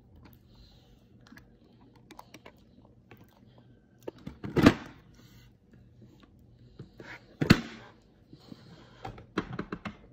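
Plastic spoon clicking and scraping against a plastic bowl of rice, with two loud knocks, one about halfway through and one a few seconds later, and a quick run of small clicks near the end.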